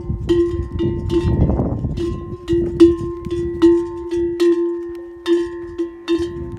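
Camel bell clanking unevenly, about two strikes a second, each strike ringing on at one steady low note with fainter higher overtones. A low rumble sits under the bell, strongest in the first two seconds.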